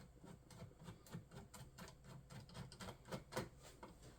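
A screwdriver backing out a small screw from a computer's hard-drive mount: faint, rapid clicking about four times a second, a little louder about three seconds in.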